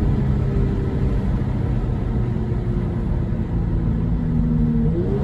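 Kia Stinger 3.3-litre twin-turbo V6 with Borla cat-back exhaust and Injen intakes, heard from inside the cabin while cruising at low revs: a steady low exhaust drone with road noise underneath, and a brief change in revs near the end.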